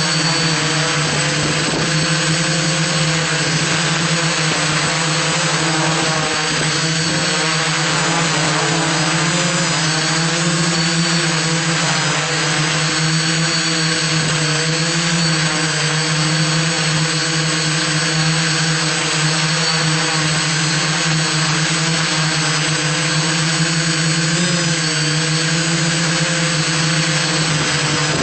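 iDEAFLY IFLY4S quadcopter's electric motors and propellers running: a steady buzzing whir whose pitch wavers slightly.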